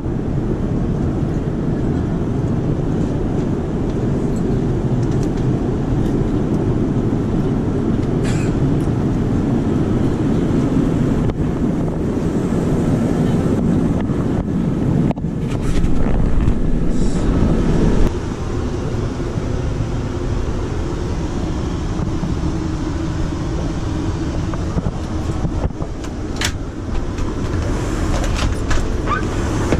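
Steady low drone of a Boeing 787-10 airliner cabin in flight: engine and airflow noise. A few clicks and knocks sound over it, and the drone grows louder for a few seconds about halfway through.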